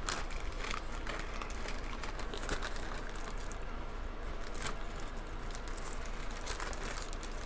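Clear plastic zip-lock bag crinkling and rustling in the hands as a decal sheet and paint mask are shifted inside it, with scattered short crackles.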